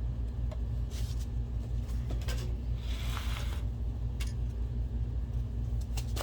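Scattered light clicks and a short scrape of plastic projector cover parts being handled and fitted together, over a steady low hum.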